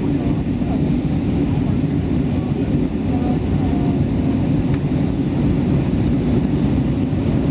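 Steady low rumble of engine and airflow noise inside an airliner cabin in flight, descending towards landing.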